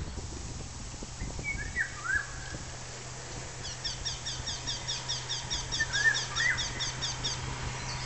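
Nightingale singing: slurred whistled notes about two seconds in and again about six seconds in, with a fast run of repeated high notes, about five a second, lasting nearly four seconds between them. A steady low hum runs underneath.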